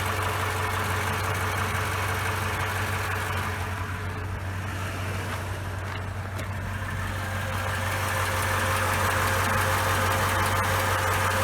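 2011 Toyota Tundra's 5.7 L iForce V8 idling steadily at operating temperature, with a diesel-like clatter that the owner puts down to the ordinary noise of a dual-overhead-cam engine.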